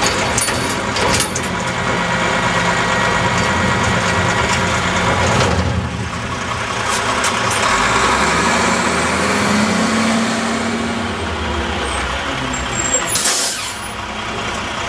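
Diesel engine of a Dempster Recycle One recycling truck on a WhiteGMC Xpeditor chassis, running while the hydraulics work its top-dumping hoppers, with a few metal clanks in the first second. The engine pitch rises about eight seconds in and holds for a few seconds, and a short burst of air-brake hiss comes near the end.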